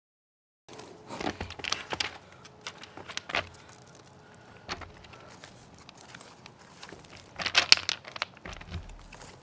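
Rustling and crackling as ginger plants and potting soil are handled by hand, coming in a few irregular clusters, the loudest near the end.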